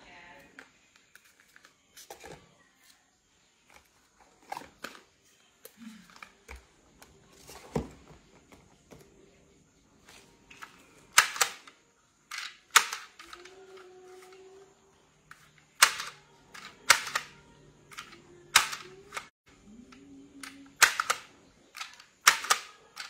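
Irregular sharp clicks and snaps as small e-liquid boxes and bottles are handled, louder and more frequent in the second half.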